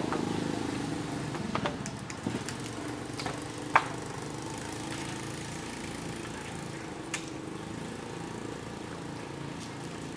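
A motor engine running steadily in the background, a little louder over the first couple of seconds and then steady. A few short, sharp clicks sound over it; the loudest comes about four seconds in.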